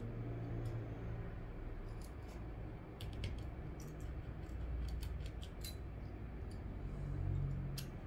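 Precision screwdriver and tweezers clicking and tapping on the small screws and metal connector bracket inside an opened iPhone 6: a scatter of light, sharp clicks, bunched in the middle and second half, over a low steady hum.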